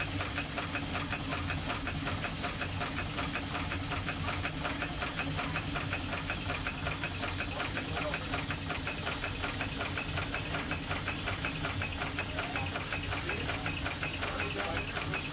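Vertical reciprocating steam engine of a steam launch running steadily: a fast, even beat from its rods and valve gear, with steam hiss.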